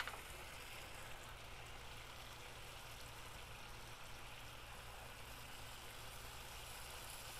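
Chicken drumsticks sizzling faintly and steadily on a charcoal kamado grill's grate, over a low steady hum.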